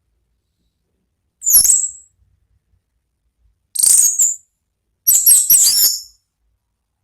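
Orange-headed thrush singing its full, open 'ngeplong' song in three short high-pitched phrases, the last the longest and most varied, with silence between them.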